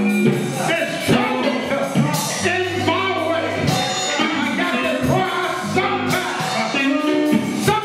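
Live gospel music in a church: a voice singing over a band with drums and cymbals.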